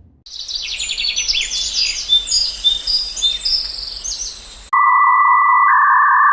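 Sound-effect clip of birds chirping rapidly in short high calls over a light background hiss. About three-quarters of the way in it cuts off abruptly and a steady electronic beep tone begins, with a higher tone joining it about a second later.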